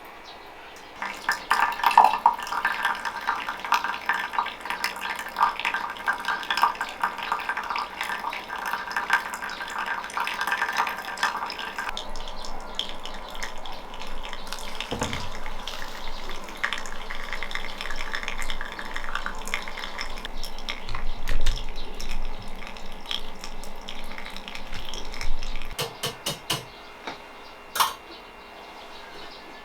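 Dishes and utensils clattering and clinking, with a rapid run of small clinks in the first half and scattered knocks and clatter after.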